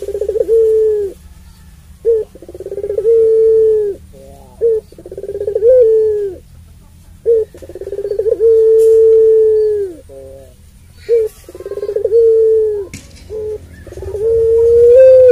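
Puter pelung, a long-voiced Barbary dove, cooing over and over: each call opens with a short quick note and runs into a long drawn-out coo, the longest held for over two seconds.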